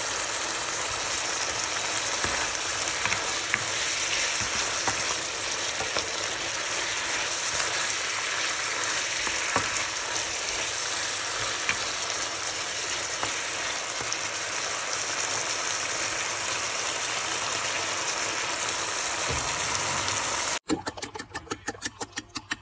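Food frying in hot oil in a pan: a steady sizzle with scattered small crackles and pops. It cuts off suddenly near the end, and a quick run of light, evenly spaced ticks follows.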